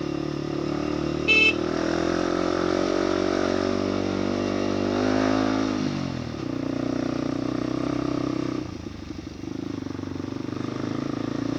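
Motorcycle engine pulling up a steep climb: its pitch rises steadily for about five seconds, drops sharply at a shift, holds, then eases off and picks up again. A short high beep sounds about a second in.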